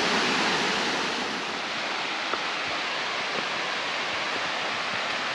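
Steady rush of water from a mountain waterfall's cascades, an even hiss without a break, easing slightly after about a second.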